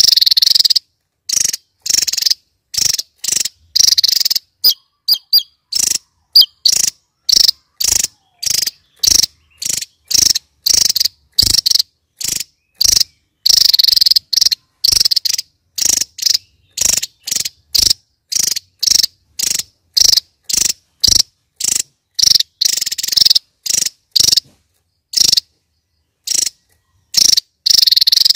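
Javan tesia singing its rapid-fire 'nembak' song: a long run of short, high, buzzy bursts, about one and a half a second, with short gaps and a few longer bursts.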